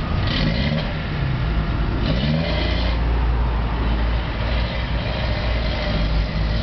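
A motor vehicle's engine running with a deep, steady rumble, and short rising sweeps in pitch twice early on.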